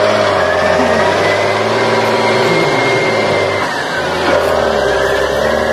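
Diesel engine of a large John Deere tractor running hard as it pulls a loaded trailer through deep mud, with a thin high whine over the engine note. The engine sags briefly about two-thirds of the way through, then picks up again.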